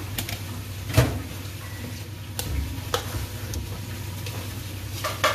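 Metal spoons clinking against a metal mixing bowl and a wok: a handful of sharp clicks, the loudest about a second in and two close together near the end, over a steady low hum.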